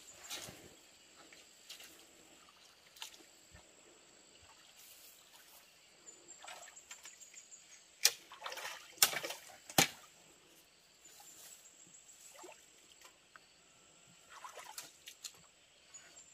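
Water splashing and sloshing in a shallow stream, in scattered small splashes with a cluster of louder, sharper splashes about eight to ten seconds in.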